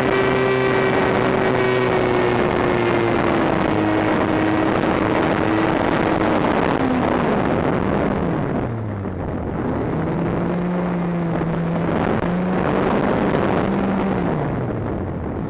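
Electric motor and pusher propeller of a Bixler model plane whining, heard from the onboard camera together with wind rushing past the airframe. The pitch drifts slowly lower, drops steeply about halfway through as the throttle is eased, rises again and holds, then falls away near the end.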